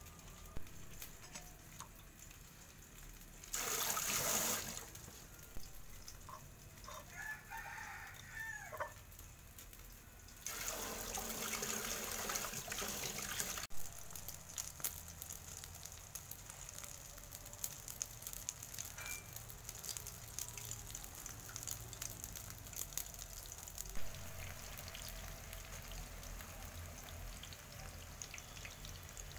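Water running into a plastic colander at a sink in two bursts, the first short and loudest, the second longer, with a rooster crowing once between them. Then an egg omelet frying in oil in a pan, a steady faint sizzle with light crackles.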